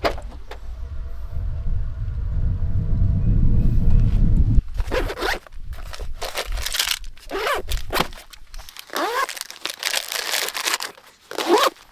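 Wind rumbling on the microphone for the first four seconds or so, then nylon bag zippers pulled open and shut in several quick strokes, some rising and some falling in pitch, with nylon fabric rustling.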